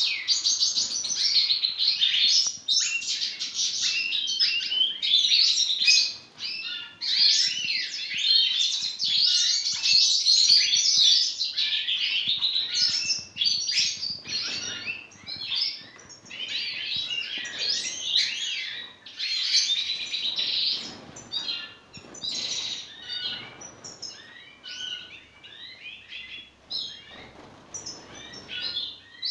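European goldfinches of the major race singing: a continuous fast, high-pitched twittering song. It is loud and dense for the first twenty seconds or so, then thinner and quieter near the end.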